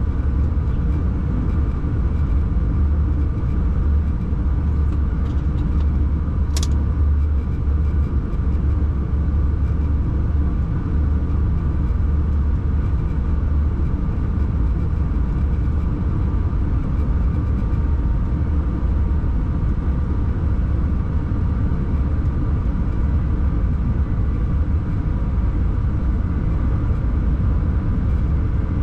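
Electric locomotive under way, heard from inside the driver's cab: a steady low rumble with a faint steady whine above it. A single sharp click about six and a half seconds in.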